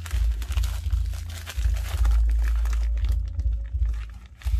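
Plastic courier mailer crinkling as it is handled and its sealed flap is picked at, with dense crackles that die down briefly near the end.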